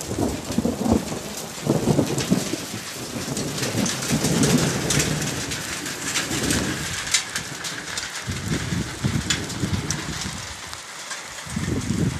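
Rain falling in a steady hiss, with gusts of wind buffeting the phone's microphone in low rumbles and scattered sharp ticks of drops, most of them in the middle of the stretch.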